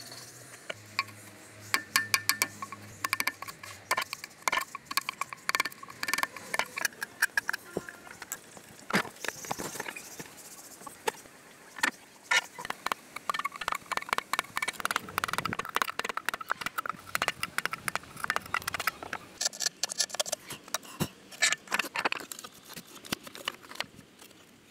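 Wooden pieces of a burr-puzzle stool knocking and clattering against each other as they are slid and fitted together by hand, in a long irregular run of sharp clicks and knocks.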